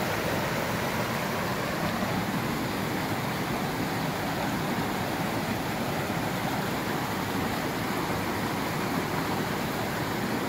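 Small mountain creek rushing steadily over boulders and little cascades.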